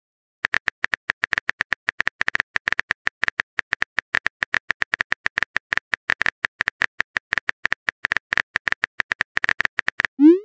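Simulated phone-keyboard key clicks from a texting-story app, as a message is typed: rapid, uneven clicks, several a second, each with the same bright tick. Right at the end a short rising blip starts, the app's message-send sound.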